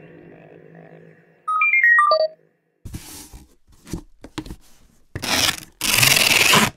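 Edited-in sound effects. A quick run of short electronic beeps, stepping down in pitch like a ringtone, is followed by a few short noisy swishes, the longest and loudest near the end.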